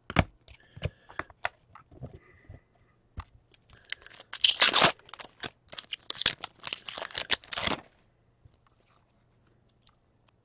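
A trading card pack wrapper being torn open and crinkled by hand. Light clicks of cards being handled come first, then two loud bouts of tearing and crinkling, about four and six seconds in.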